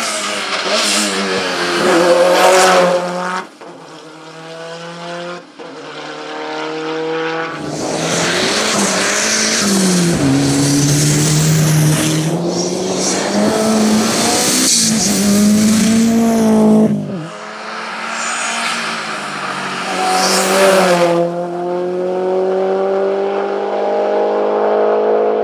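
Several turbocharged hill-climb race cars, among them a Lancia Delta, driving past one after another at full throttle. The engine note climbs and drops with gear changes, with a loud, rough stretch in the middle and a steadily rising pitch near the end.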